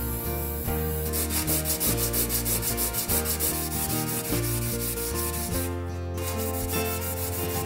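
A small metal bracket rubbed back and forth by hand on a red nylon abrasive pad, a quick, rhythmic scrubbing rasp of rapid strokes that eases off about two thirds of the way through.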